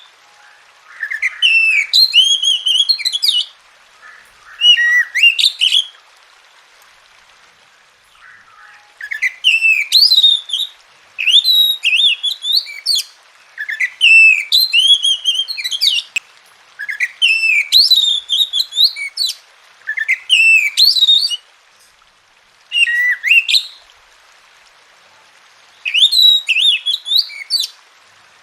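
Oriental magpie-robin singing in short, loud phrases of varied whistles and trills, each a second or two long, with brief pauses between them.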